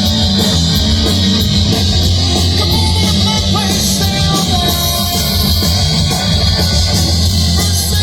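Rock music with electric guitar and drums, playing steadily.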